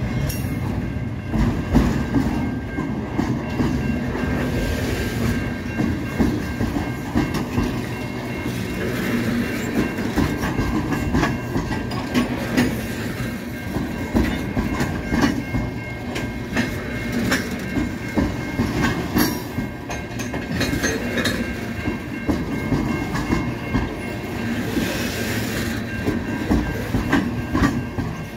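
Freight cars of a manifest train rolling past at close range: a steady heavy rumble, with wheels clicking over the rail joints. Thin steady high tones run underneath, fitting the grade-crossing warning bell ringing.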